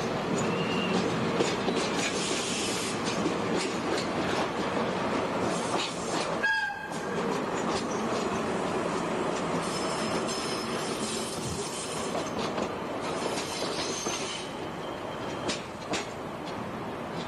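JNR DE11 diesel-hydraulic locomotive running light on jointed track, wheels clicking over the rail joints with some wheel squeal. The sound briefly drops out about six and a half seconds in.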